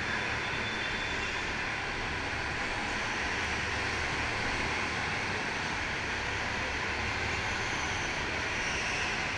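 Steady background drone of an indoor karting hall, even in level throughout, with no single knock or voice standing out.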